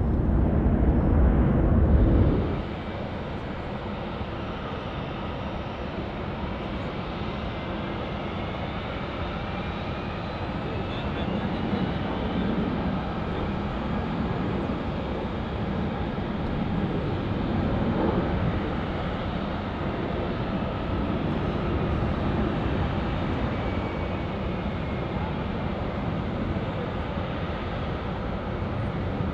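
Aircraft engine noise of a plane moving at an airport: a steady rumble with faint whining tones that slide in pitch. A louder rumble in the first two seconds cuts off abruptly.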